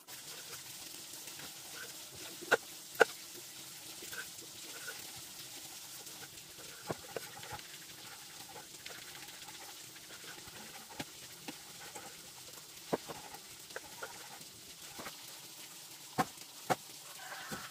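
Knife chopping through raw pork fat onto a wooden chopping board: irregular sharp knocks, sometimes in pairs, over a steady hiss.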